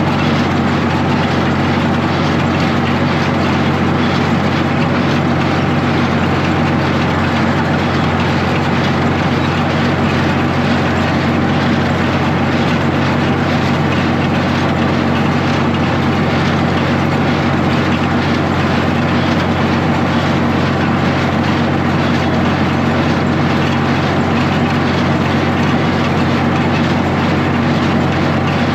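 Tractor engine running steadily under load while pulling a working New Holland 275 hay baler.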